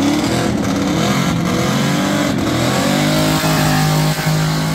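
Drag race car engine at full throttle, accelerating down the strip. Its pitch climbs and drops back at short breaks about a second apart, like gear changes, then holds a steady high note.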